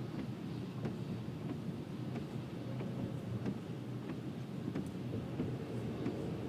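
Inside a car cabin on a rain-soaked highway: a steady low rumble of tyres and engine, with scattered irregular taps of raindrops on the windshield and roof.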